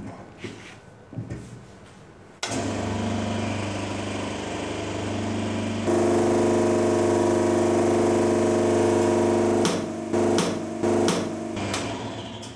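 Hydraulic pump motor of a universal testing machine starting suddenly with a steady electric hum, then running louder about three seconds later as load is applied. Near the end come three sharp cracks, as the high-carbon steel specimen gives way in double shear.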